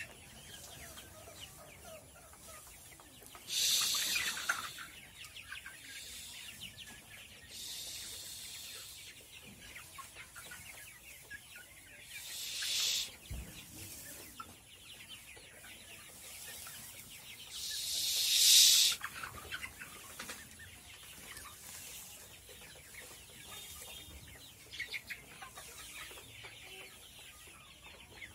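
A flock of 60-day-old Sonali chickens clucking and peeping continually in low, scattered calls. Four louder bursts of high hissing noise break in, the loudest about two-thirds of the way through.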